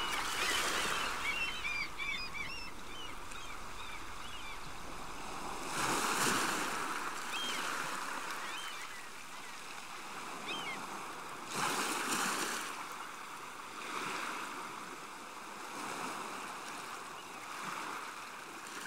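Water washing in slow surges about every six seconds. A flock of waterbirds calls busily in the first few seconds, and a few single calls follow later.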